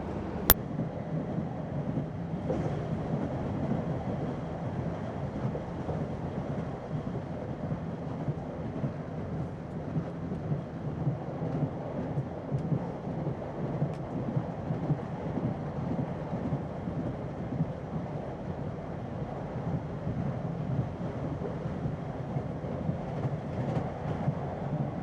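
Train running with a steady, low rumble that goes on unbroken. A single sharp click comes about half a second in.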